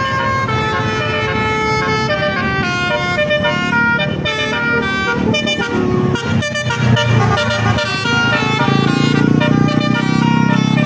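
Bus telolet horn, a multi-tone musical air horn, playing a tune of quickly changing notes. A bus engine runs underneath, growing louder about two-thirds of the way in.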